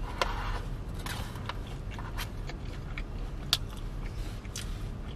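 A person chewing a fast-food chicken sandwich and fries, with scattered small clicks and rustles of food and wrapper, over a low steady hum inside a car.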